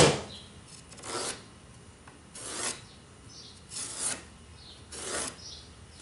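Pencil scratching and scribbling on a rough-sawn cedar board: a handful of short rasping strokes about a second apart, the first one loudest.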